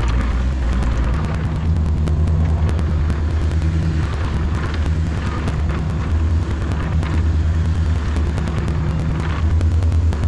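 Volvo EC35C mini excavator's diesel engine running under digging load, its note stepping up about a second in, with irregular clatter and knocks from the bucket working a stump.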